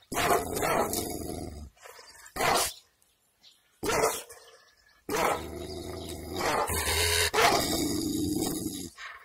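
Kangal shepherd dog barking in bouts: one burst at the start, two short barks in the middle, and a longer run of barking from about halfway in.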